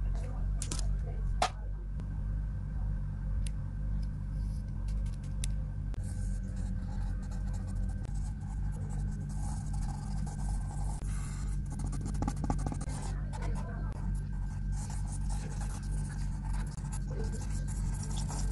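Pencil scratching on paper in quick, irregular sketching strokes, over a steady low hum.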